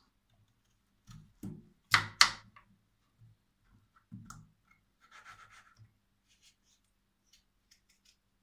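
Kitchen knife slicing potatoes on a cutting board: a few knocks of the blade against the board, the loudest two in quick succession about two seconds in, a short scraping sound later, then light ticks.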